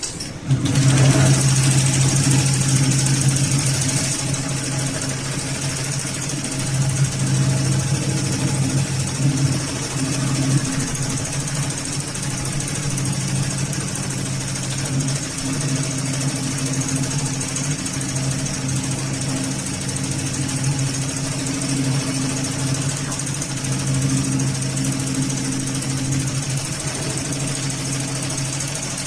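Heavy-duty automatic pattern sewing machine running steadily, stitching a lifting loop onto thick polypropylene webbing. It starts suddenly about half a second in, with a strong low hum and a bright hiss over it.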